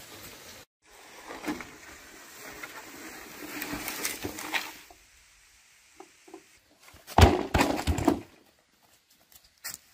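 Scratchy handling noise with scattered clicks, then a quick cluster of knocks and thumps about seven seconds in, the loudest sound here.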